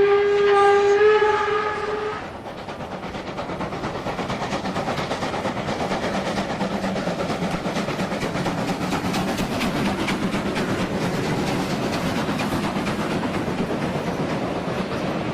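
A freight train passing through: the train sounds one long warning note for about two seconds, then its wheels clatter over the rail joints in a steady, rapid rhythm, easing slightly near the end.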